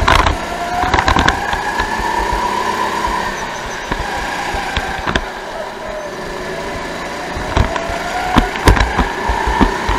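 Onboard sound of a Sodi go-kart's engine running under throttle, its pitch rising and falling as the kart speeds up and slows through corners. Several sharp knocks come at the start and again near the end.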